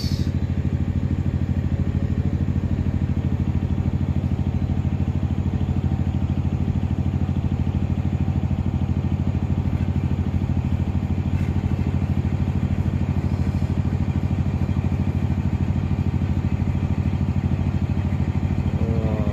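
Boat engine running steadily at a constant speed: an even, low drone that does not change.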